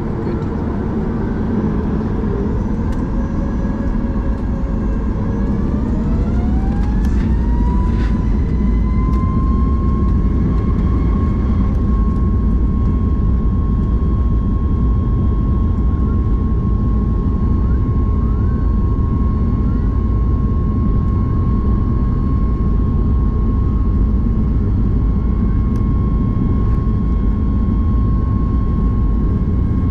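Boeing 737-9 MAX's CFM LEAP-1B jet engines, heard inside the cabin, spooling up to takeoff thrust. A whine rises in pitch over several seconds, then holds steady over a heavy, continuous rumble.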